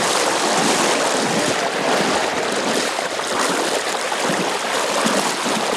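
Water splashing and rushing as legs wade through a shallow river current, a loud, steady wash of noise.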